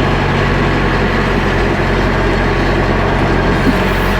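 Diesel engine of a tractor-loader backhoe running steadily at a low, even speed.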